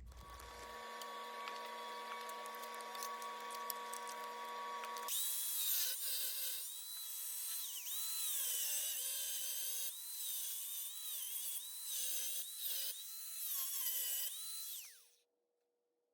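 A high-speed power cutting tool cutting through the sheet-metal floor pan. It runs with a steady whine for about five seconds, then gets louder, its pitch dipping and recovering again and again as it bites into the metal. Near the end it winds down with a falling pitch and stops.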